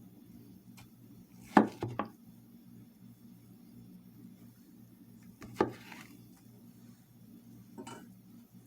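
A few sharp knocks of kitchen utensils on a board or dish: three close together about a second and a half in, another just past five seconds, and a lighter one near the end, over a low steady hum.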